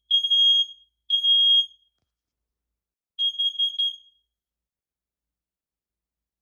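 First Alert smoke alarm sounding on test: a loud, high-pitched beep of under a second, twice about a second apart, then after a pause one stuttering, uneven beep before it stops. The owner says it sounds weird.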